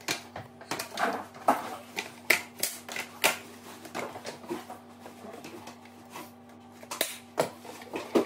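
Hard plastic parts of a toy barn set clicking and knocking as they are handled and fitted together by hand: irregular sharp clicks, the loudest a little over two seconds in, about three seconds in, and near the end.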